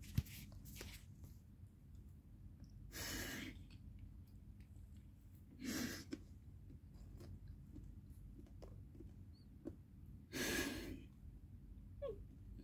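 A woman's heavy breathing while crying: three loud, noisy breaths, about three, six and ten and a half seconds in.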